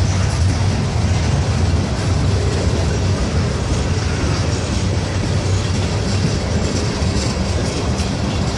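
Freight cars of a mixed freight train, mostly tank cars and covered coil cars, rolling past on the near track: a steady, loud rumble of steel wheels on rail.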